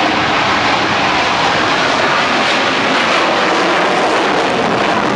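Twin jet engines of F/A-18 Hornet fighters running loud and steady on the runway: an even, rushing jet noise that neither rises nor falls.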